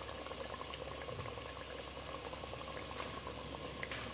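Chicken, onion and tomato frying in hot mustard oil in a handi, a steady bubbling sizzle as wet spice paste soaked in water goes into the pot.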